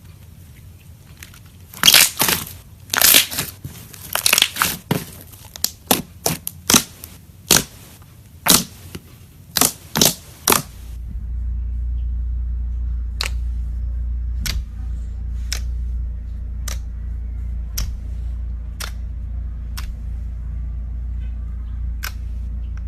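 A run of irregular crackling, crunching pops for several seconds. These give way a little before halfway to a steady low hum with a faint click about once a second.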